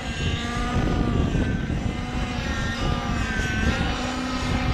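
Model helicopter's engine and rotors running through a tic-toc aerobatic maneuver. The whine keeps rising and falling in pitch as the helicopter swings back and forth, over a steady low rumble.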